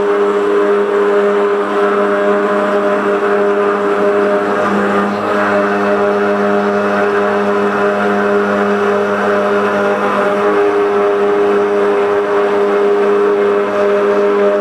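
CNC router spindle running a milling bit through an andesite stone slab under water coolant: a steady, loud motor whine with gritty grinding of the stone.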